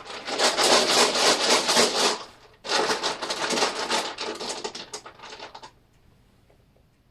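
A handful of dice shaken together in a dense rattle for about two seconds, then thrown: a second clatter that thins out into scattered clicks as the dice tumble and settle, stopping near the end.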